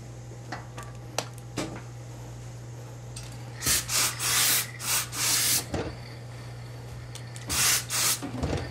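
Steam iron puffing steam in short hissing bursts as it presses suit trousers over a pressing buck. A cluster of bursts comes in the middle and two more near the end, after a few light clicks of handling. A steady low hum runs underneath.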